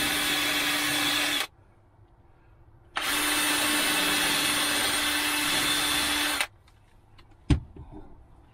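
Cordless drill running at steady speed as it bores screw holes through a wooden drawer front for drawer pulls. It stops after about a second and a half, then runs again for about three and a half seconds. A single sharp knock follows near the end.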